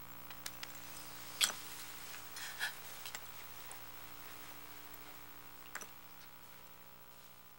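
Broken pottery shards clicking lightly as they are moved about by hand on a tabletop: a few scattered sharp clicks, the loudest about one and a half seconds in, over a steady low hum that slowly fades near the end.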